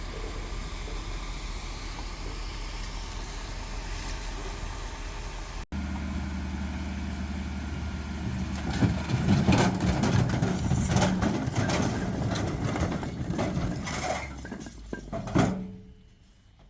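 Heavy construction machinery with diesel engines running. After a break about a third of the way in, the engine sound grows louder, with a rapid series of clanks and knocks, the loudest near the end, and then the machine noise falls away sharply.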